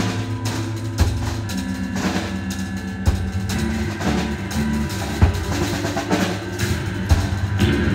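Live noise-rock band: electric guitars holding low notes that shift in pitch, over loose drumming from two drum kits, with a hard drum hit about every two seconds.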